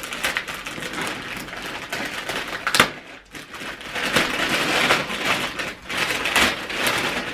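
Gift wrapping paper rustling, crinkling and tearing as a present is unwrapped by hand, with a sharp crackle nearly three seconds in.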